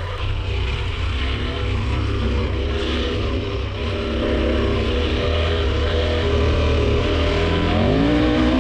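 KTM 1190 Adventure R's V-twin engine running as the bike is ridden, over a heavy low rumble. Near the end the engine note climbs as the bike accelerates.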